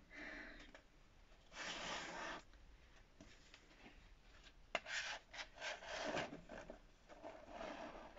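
Paper rustling as a printed book dust jacket is pulled from its paper backing sheet and wrapped around a hardback book: one brief rustle about two seconds in, then a busier run of rustles and small taps in the second half.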